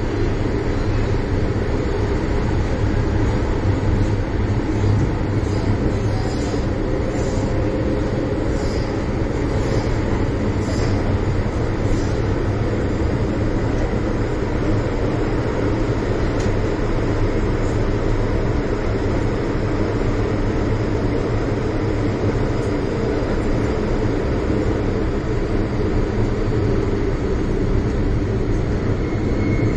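MTR Island Line M-Train heard from inside the passenger car while running through the tunnel: a steady, loud run of traction motor hum and wheel-on-rail noise, with a series of faint light clicks during roughly the first ten seconds.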